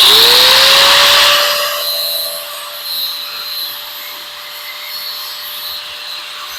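Electric buffing tool with a buffing pad spinning up, its motor tone rising to a steady pitch within the first second and then holding. A loud rushing noise at the start eases after about a second and a half into a quieter steady run.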